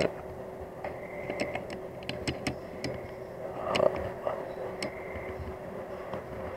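Scattered sharp clicks and taps from handling a night vision scope while its focus is adjusted, over a steady faint hum.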